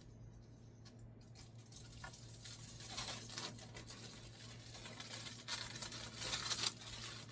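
Plastic packaging and protective film rustling and crinkling as it is handled and pulled off. It is faint at first and grows busier and louder from about halfway.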